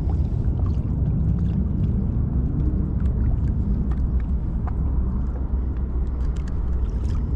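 Steady low rumble of wind buffeting the microphone on open water, with a few faint clicks scattered through it.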